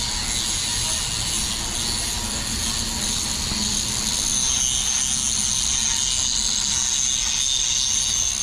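Steady machine noise: a constant high hiss over a low rumble.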